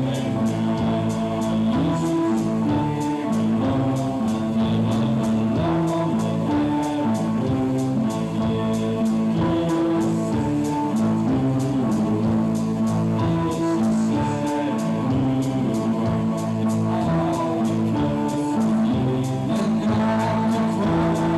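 Live band music from a keyboard and an electric guitar: long held chords that change in steps in a slow repeating pattern, over a steady ticking beat.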